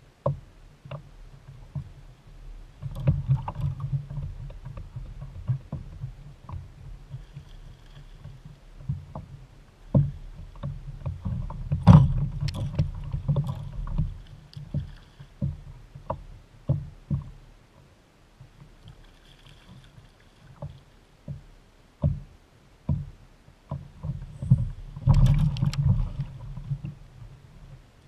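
Knocks, thumps and shuffling on a plastic Jackson Liska fishing kayak's hull as the angler moves about on deck and sits down, picked up through the boat. Short scattered knocks run throughout, with heavier rumbling thumps a few times, the loudest about halfway through.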